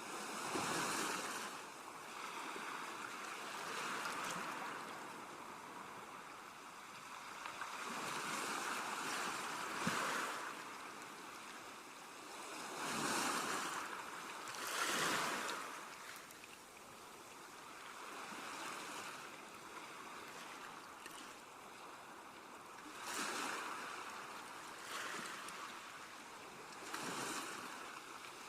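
Sea waves surging and washing ashore, a rushing hiss that swells and falls every few seconds, with a few louder breaks.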